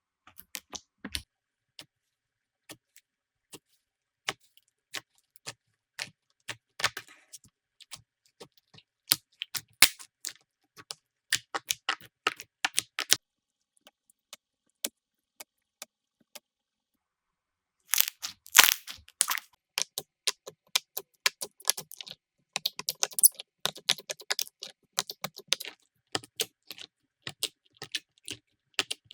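Slime being squeezed and pressed by hand, making crisp little clicks and crackling pops of trapped air, with a pause of a few seconds in the middle.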